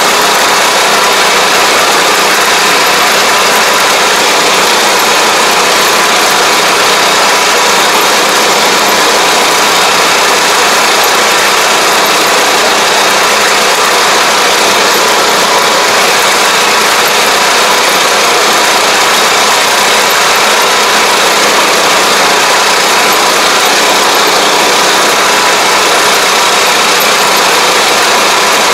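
Ride-on pesticide sprayer's engine running steadily at a constant speed, loud and unchanging, as the machine drives along the crop rows spraying.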